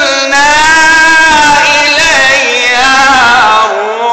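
A man reciting the Quran in a loud, strong melodic voice, holding one long ornamented vowel whose pitch wavers and slides, then dropping lower and starting a new phrase near the end.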